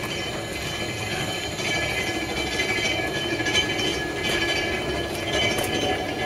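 A 1930-built locomotive turntable rotating: a steady rumble of steel running gear on the rail, with a thin high whine and a few light clicks partway through.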